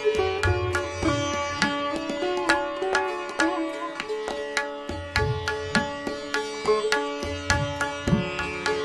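Background music in Indian classical style: a plucked string melody with many quick notes and sliding, bending pitches over a steady drone, with occasional deep drum strokes.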